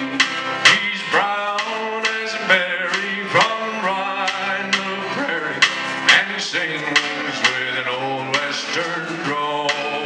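Live country band playing: a male lead singer sings sliding, held notes over strummed acoustic guitars and upright bass, with a steady beat.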